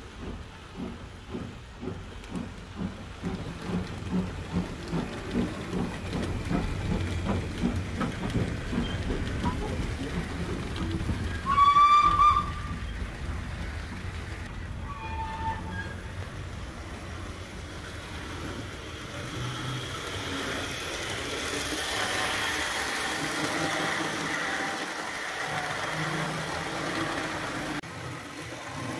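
Steam locomotive sounds: exhaust chuffs that quicken over the first eight seconds or so, then a loud whistle blast about twelve seconds in and a short second whistle a few seconds later, followed by a steady rumble of running.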